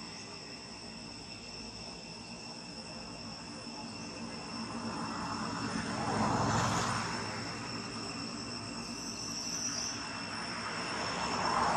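Steady high-pitched insect buzzing, with two swells of broad rushing noise that rise and fade, one about six seconds in and another at the end.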